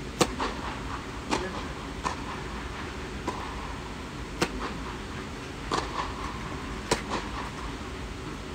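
Tennis rackets striking the ball and the ball bouncing on the clay court: sharp pops about a second apart, echoing in a large air-dome tennis hall.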